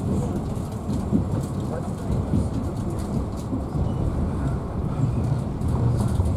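Passenger train running along the track: a steady low rumble of the wheels on the rails, with faint scattered ticks and rattles.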